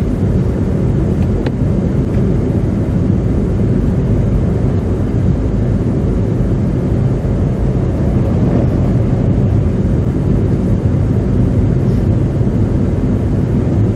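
Steady road noise heard inside a moving car: tyres running through slush and ice on a winter road, a constant low rumble.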